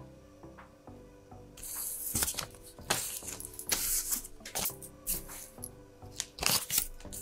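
Thermal-printed paper prints rustling and crinkling in bursts as they are picked up, handled and laid down on a table, over soft background music.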